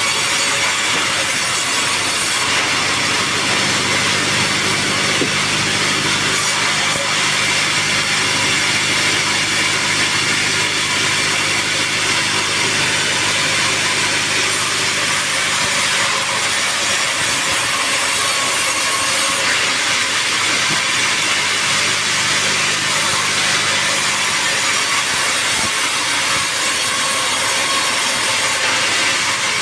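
Sawmill saw cutting through a teak log, a steady loud cutting hiss over the constant hum of the saw's motor.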